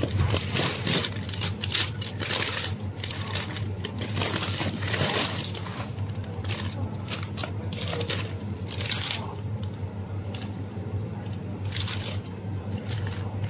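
Plastic packets of frozen food crinkling and rustling as they are picked up and shifted about in a chest freezer, in irregular bursts over a steady low hum.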